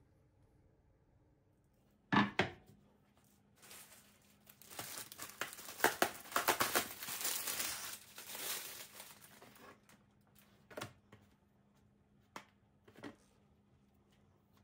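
A single knock, then several seconds of plastic packaging being crinkled and torn open, ending in a few light taps and clicks.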